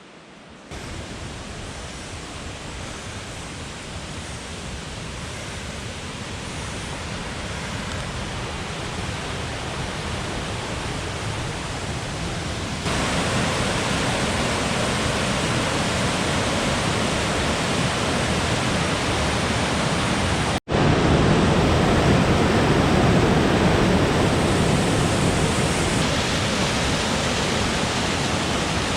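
Watson Falls' water crashing down: a steady, loud rush of falling water that grows louder in steps, with a brief dropout about two-thirds of the way through.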